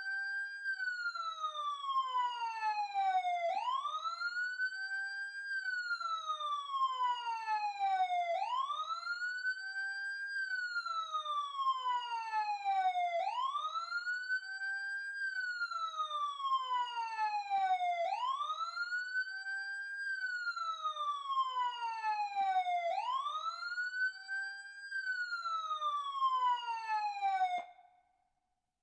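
Emergency siren wailing in a repeating cycle: the pitch rises quickly, then falls slowly over about three seconds, starting again roughly every five seconds. It cuts off suddenly near the end.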